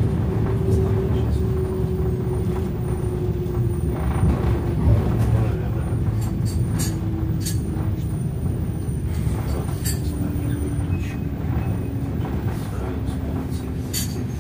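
Passenger train running on the rails: a steady low rumble with a whine that falls slowly in pitch, and scattered light clicks and knocks.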